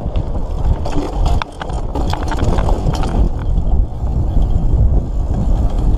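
Mountain bike riding down a rough dirt trail: wind rumble on the microphone and tyre noise, with clattering knocks from the bike as it rattles over roots and bumps, busiest in the first half.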